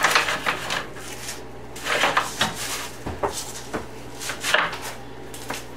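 Scattered knocks, clunks and rattles of a vacuum-tube amplifier chassis being handled and moved up onto a workbench, over a steady low hum.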